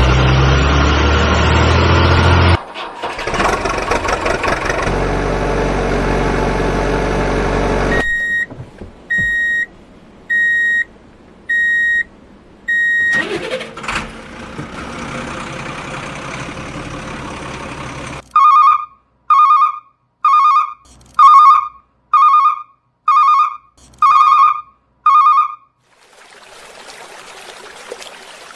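Vehicle engine sound starting up and running, followed by electronic beeping in two runs: five short high beeps, then, after more engine noise, eight louder, lower beeps about one a second. It ends in a steady hiss like running water.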